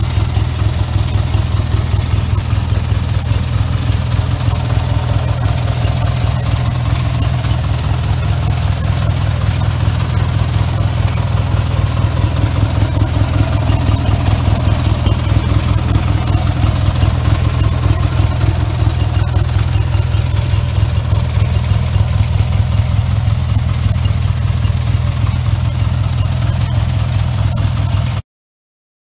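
18 hp Briggs & Stratton opposed-twin flathead engine of a lawn tractor idling steadily with a fast, even exhaust beat. It cuts off suddenly near the end.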